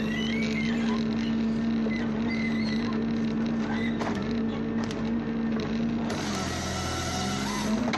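Heavy machine engine running steadily with a constant pitched hum. About six seconds in, a brighter, hissier machine sound takes over for under two seconds.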